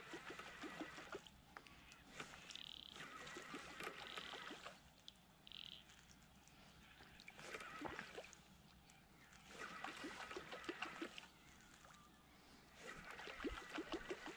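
Fishing reel being cranked in bursts of one to three seconds with short pauses between them, a whirring wind full of quick gear ticks, as a lure is retrieved stop-start across the dam.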